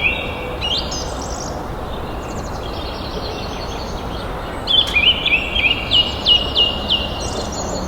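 Songbirds singing: repeated chirps and short whistled notes over a steady background hiss. The loudest part comes about five seconds in, a run of quick downward-sliding notes.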